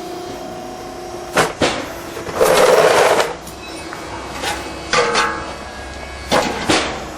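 Motorised aluminium louver: the small drive motor hums steadily, then stops about a second in, followed by a run of knocks and clacks from the blades and frame, with a longer rattling clatter near the middle.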